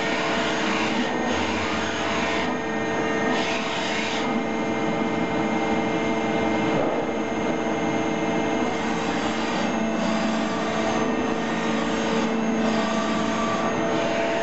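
Spinner TM CNC turn-mill lathe running a machining cycle: a steady machine hum with several held tones from the spindle and axis drives, under a hiss of coolant spray that dips briefly every few seconds.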